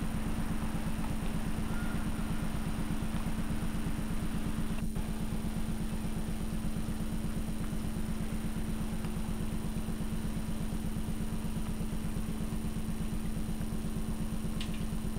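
Steady low electrical hum and buzz from an old videotape recording, unchanged across a brief dropout about five seconds in.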